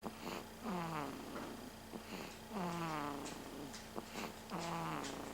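A baby snoring in its sleep. Each breath brings a pitched snore that slides down in pitch, about one every two seconds, three in all.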